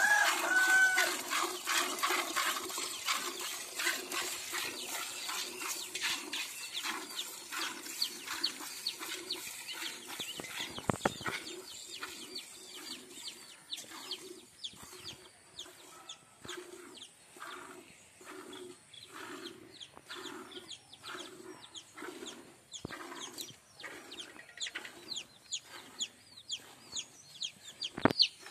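Cow being milked by hand into a steel pot: jets of milk squirting into the metal pot in a steady rhythm of about one and a half squirts a second.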